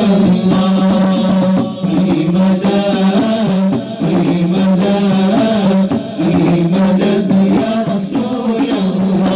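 A group of men singing an Arabic devotional chant (nasheed) in unison through microphones and a PA, over a steady low held note that breaks off briefly a few times.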